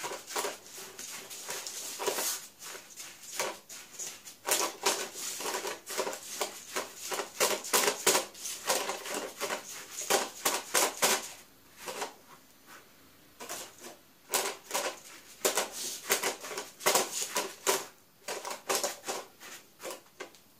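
Silicone spatula pressing and scraping a buttery crushed-biscuit cheesecake base into a springform pan: a quick, irregular run of taps and scrapes, with a short lull about halfway through.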